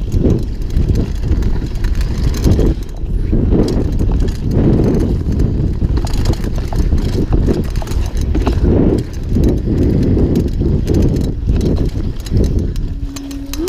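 Downhill mountain bike rattling and clattering over a bumpy dirt trail at speed: irregular knocks from the frame, chain and suspension, over a constant low rush of wind on the microphone.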